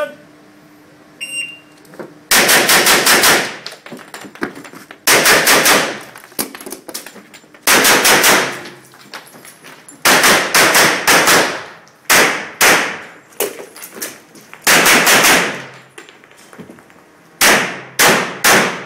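Pistol fired in strings of several rapid shots, the strings separated by pauses of a second or two as the shooter moves through an IPSC stage. The shots ring with the reverberation of an indoor range. They are preceded about a second in by a short high beep from the shot timer that starts the run.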